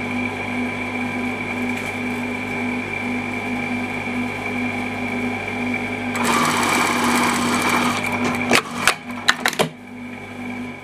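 Brother electric sewing machine running steadily as it stitches fabric, with a pulsing hum from the needle stroke; about six seconds in it gets louder and harsher for a couple of seconds. Near the end it stops amid a few sharp clicks.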